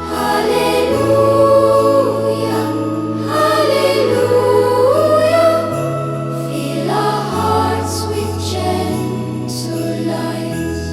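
Choral music: a choir holds long, slow vocal lines over sustained low chords that shift every couple of seconds, in a sacred Christmas style.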